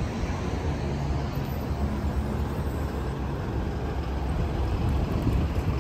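Road traffic on a town street: a steady low rumble of passing motor vehicles.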